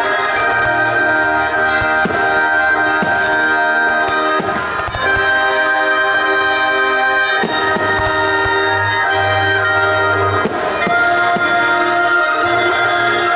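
Loud orchestral music with brass playing over a fireworks display, with several sharp firework bangs cracking through it at irregular intervals.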